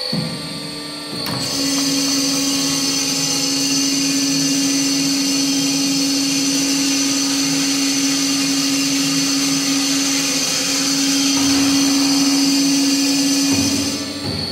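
BOMAR Workline 610.450 DGH semi-automatic metal-cutting band saw running with a steady mechanical whine and hum; about a second in it gets markedly louder and stays so until just before the end, when it drops back to a quieter running sound.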